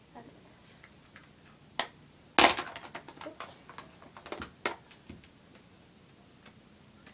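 Plastic makeup cases being handled and opened: a string of sharp clicks and clatters, the loudest a clatter about two and a half seconds in, followed by quick smaller clicks.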